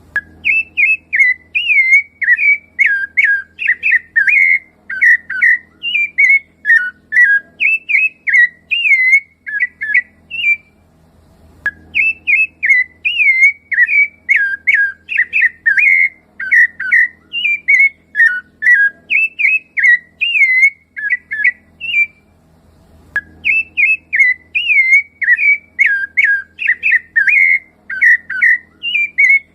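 Rufous-bellied thrush (sabiá-laranjeira) singing: fast runs of loud, fluty whistled notes that glide up and down. The song comes in three bouts of about ten seconds each, with two short pauses of about a second between them.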